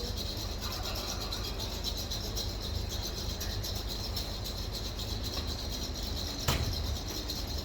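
Steady room background with a low hum and a faint high whine, broken by a single sharp click or knock about six and a half seconds in.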